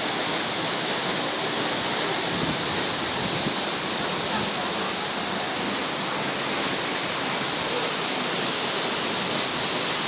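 Waterfall pouring into a rocky pool: a steady, unbroken rush of falling water.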